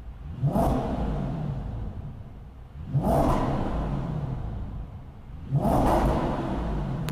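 Audi B7 S4's 4.2-litre V8 heard from inside the cabin being free-revved with the car standing still: three quick throttle blips to about 3,000–4,000 rpm, each jumping up sharply then settling back toward idle.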